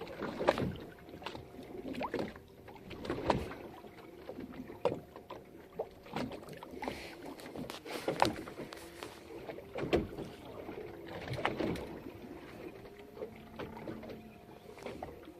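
Sounds aboard a fishing boat on the water: irregular knocks and splashes over a faint steady hum.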